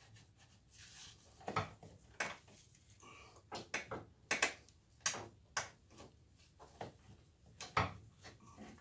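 Irregular knocks and clinks of tools and metal parts being handled during a rack-and-pinion rebuild, about a dozen sharp hits spread over several seconds, the loudest around the middle and near the end.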